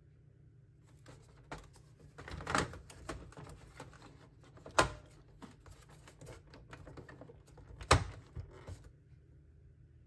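The plastic housing of a Canon PIXMA TS5160 printer's power supply unit is being fitted into its plastic bay in the printer base, giving a run of light plastic clicks and rattles. Two sharp clicks about three seconds apart stand out, the second as the unit is pressed home.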